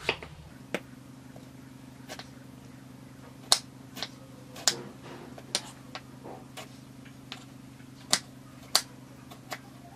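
Kitchen knife cutting through a tomato and knocking down onto a wooden cutting board: about a dozen sharp, irregular taps, a low steady hum underneath.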